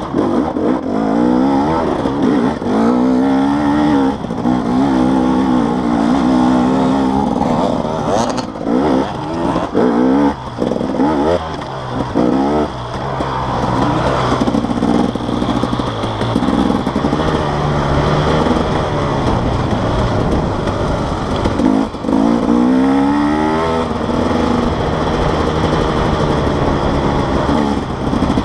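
Enduro dirt bike engine being ridden on a trail, revving up and easing off over and over, its pitch rising and falling several times as the throttle opens and closes.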